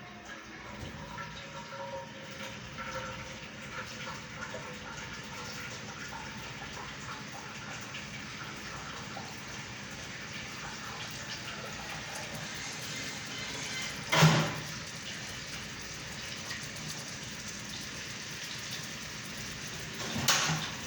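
Steady watery hiss of a pot heating toward the boil on the stove, with one loud knock about fourteen seconds in.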